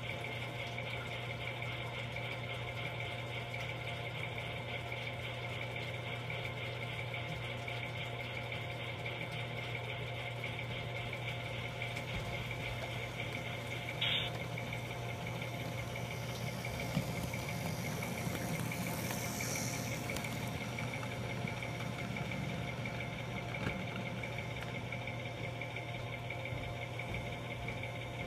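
Steady idling diesel-engine hum from an HO-scale model diesel locomotive standing on the layout. A short click comes about 14 seconds in, and a brief swell of added noise follows around 17 to 21 seconds in.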